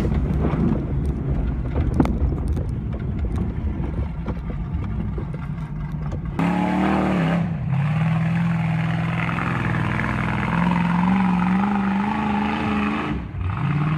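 Low noise with scattered clicks for the first six seconds or so, then a vehicle engine running, its pitch rising and falling as it revs, with two brief drops in level. The engine belongs to an off-road vehicle working the trail.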